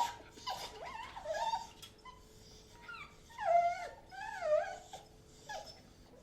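Excited dogs whining and yipping in a series of short, high-pitched calls that bend up and down in pitch; the loudest two come about three and a half and four and a half seconds in.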